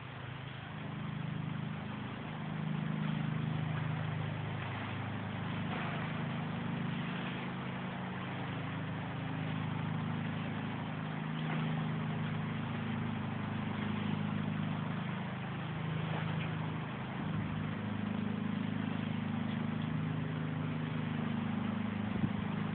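Heavy tropical rain falling steadily, with a low, wavering hum underneath.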